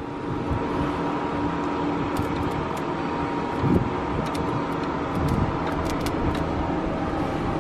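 A vehicle engine idling steadily, with a few light metallic clicks as a red booster-cable clamp is handled at the truck engine's alternator terminal.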